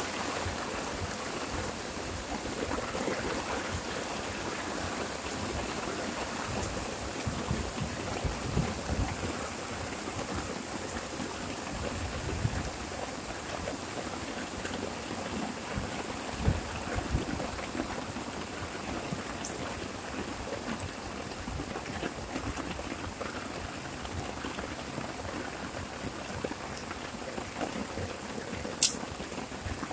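Heavy rain falling steadily, an even hiss with scattered close drop knocks. A single sharp click a little before the end.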